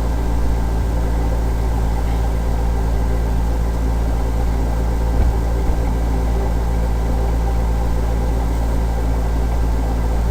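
Steady background hum and hiss with several constant low tones, like electrical hum and a computer fan picked up by the microphone, with a faint click about five seconds in.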